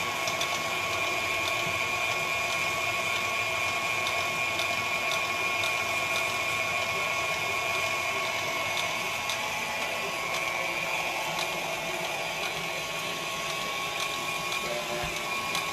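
Electric cheese shredder running steadily with a constant motor whine, grating a block of cheese pushed down through it.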